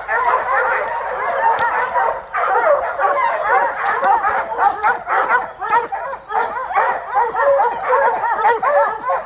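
A pack of bear hounds barking and bawling without a break, many voices overlapping: the tree bark of hounds holding a bear up a tree.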